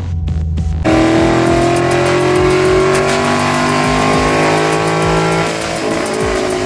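Car engine at high revs, cutting in suddenly about a second in and holding a steady high note that sags slowly in pitch, with a change in tone near the end.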